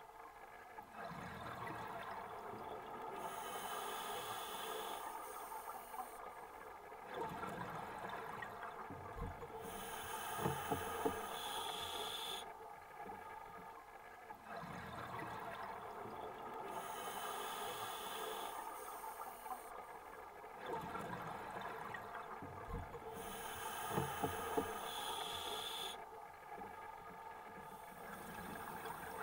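Scuba diver breathing through a regulator underwater: a hiss on each in-breath and a rushing, gurgling stream of exhaled bubbles. About four breaths come one every six to seven seconds.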